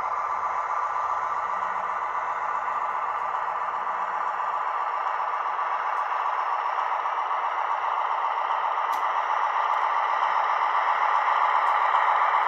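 Model train rolling along the track: a class 218 diesel locomotive model and its coaches making a steady rattle of wheels on the rails, growing louder as the train nears.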